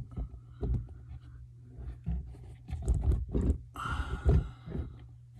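A string of knocks and clunks, with a short scraping rattle about four seconds in, as things are handled in the cabinet under a bathroom vanity sink.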